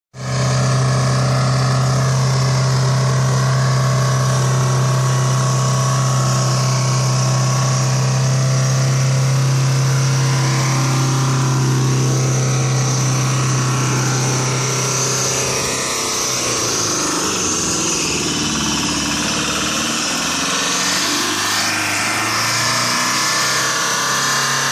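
Box truck's diesel engine in runaway, over-revving at a steady high speed with a loud drone. It is running on engine oil pushed into the intake past a blown turbo seal, so it won't stop with the key off. The pitch wavers and dips for several seconds after the middle, then settles back.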